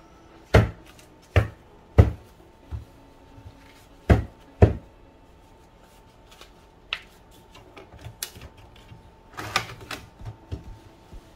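A series of sharp clicks and knocks as the printer is handled: about six loud ones in the first five seconds, then a scatter of lighter clicks with a small cluster about nine and a half seconds in.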